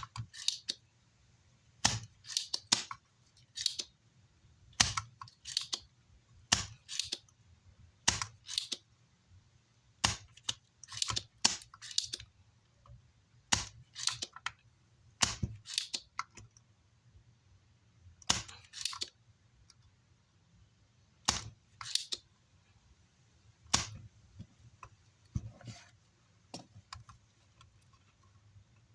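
Spring-loaded desoldering pump being cocked and fired over and over: sharp snaps every one to two seconds, often in close pairs, as solder is sucked from circuit-board joints.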